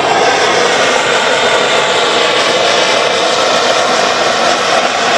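Blowtorch flame burning with a steady rushing noise, held against a cow's head to singe off the hair and blackened skin.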